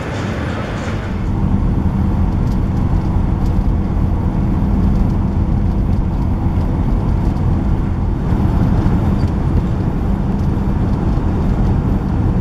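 Steady low rumble of a road vehicle driving, engine and road noise, growing louder about a second in.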